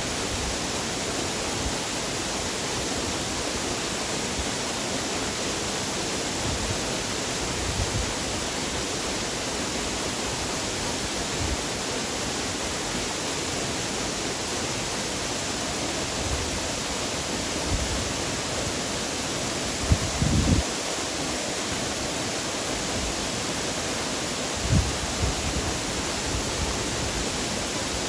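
Waterfall rushing: a steady, even roar of falling water. A few short low bumps sound near the end.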